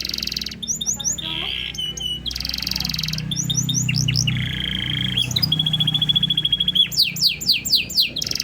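Domestic canary singing a long, varied song. It runs through buzzy passages and a rapid rolling trill, then ends with a quick series of upward-sweeping whistled notes.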